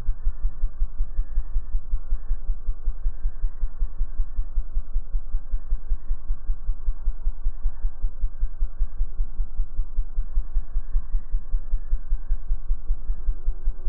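A hovering hummingbird's wingbeats slowed to a tenth of their speed, turning the wing hum into a deep, rapid, even throbbing pulse.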